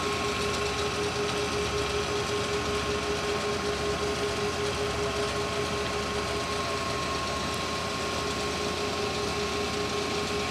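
Brown & Sharpe No. 3 universal cylindrical grinder running: a steady machine hum with a steady high whine.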